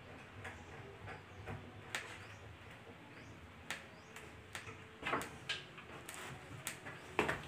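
Scattered light clicks and knocks of hand work on concealed cabinet hinge hardware against a plywood cabinet panel, with a few louder knocks about five seconds in and again near the end.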